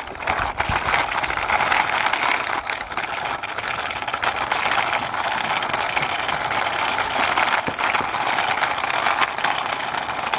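Plastic toy car wheels rolling over rough concrete as the car is pushed by hand: a steady gritty scraping with many small clicks.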